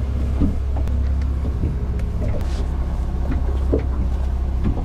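Waves slapping and knocking against the hull of a small boat at anchor, heard from inside the cabin: irregular knocks and sloshes over a steady low hum.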